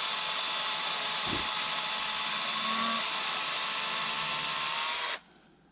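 Harbor Freight LYNXX 40-volt battery chainsaw running steadily as it cuts through ash wood, then stopping abruptly about five seconds in as the trigger is let go.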